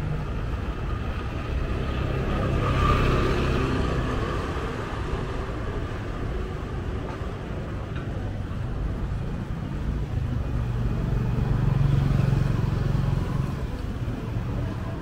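Street traffic: motor vehicles running past in a steady low rumble, swelling as vehicles pass close about three seconds in and again around twelve seconds.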